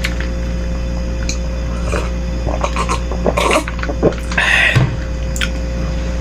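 Close-miked eating of beef-rib meatball soup: soft mouth and slurping noises, with two short noisy bursts about three and a half and four and a half seconds in, and scattered clicks. A steady low hum runs underneath.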